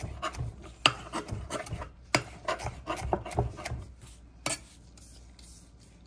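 Chef's knife chopping fresh parsley on a marble board: the blade scrapes and taps against the stone, with sharp clicks as it strikes. The chopping stops about four and a half seconds in.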